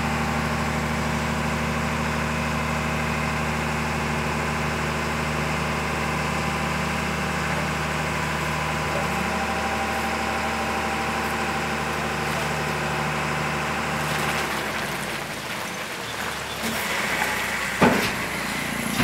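Eicher Pro 5025 T tipper's diesel engine running at a steady, raised speed while it drives the hydraulic hoist that tilts the dump body up; about fourteen seconds in the engine note drops lower as the load slides off. A sharp knock sounds near the end.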